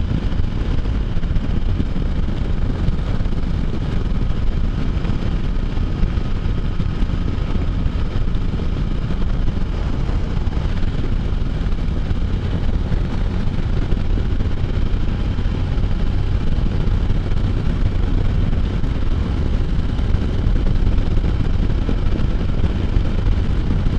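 Can-Am Spyder three-wheeled motorcycle cruising at highway speed: steady engine and road noise with wind rushing past, holding an even level throughout.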